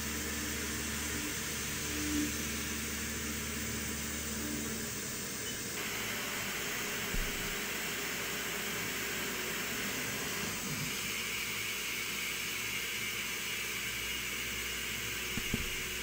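CNC machining centre drilling and tapping holes, with the spindle running and flood coolant spraying, heard as a steady hiss. A faint hum is there for about the first five seconds, and the hiss changes character about six seconds in and again about eleven seconds in.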